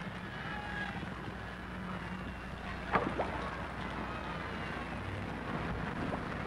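Steady wash of water and wind noise as a dolphin swims through its pool, with two sharp clicks a fraction of a second apart about three seconds in.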